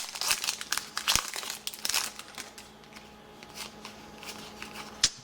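Trading card pack wrapper crinkling as a pack is torn open and handled: dense crackling for about the first two seconds, then only a few faint ticks and rustles.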